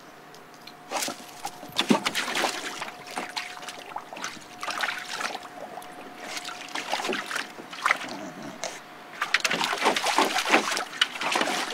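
A pit bull mix wading and splashing in a shallow plastic kiddie pool, sloshing the water as it noses balls around. The splashing comes in irregular bursts and is heaviest near the end.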